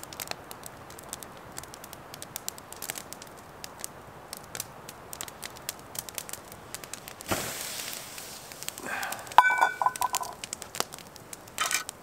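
Small wood campfire crackling and popping in scattered sharp clicks. About seven seconds in there is a short rush of noise, and about nine and a half seconds in a metal clink that rings briefly.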